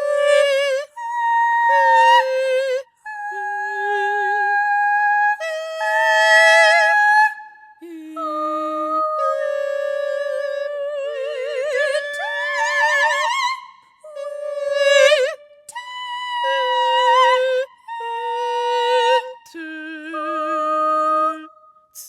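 Two sopranos singing a slow contemporary duet: long held notes with wide vibrato, in short phrases with brief breaths between them.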